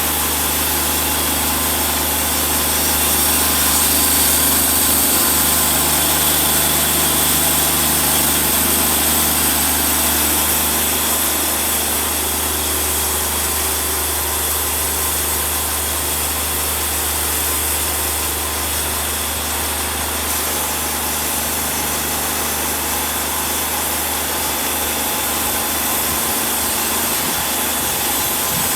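Woodmizer portable band sawmill running, its engine steady under load while the band blade saws through a log.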